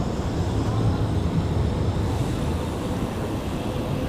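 Wind rushing over the microphone while riding a bicycle, mixed with tyre noise on the road: a steady, rumbling rush with no distinct events.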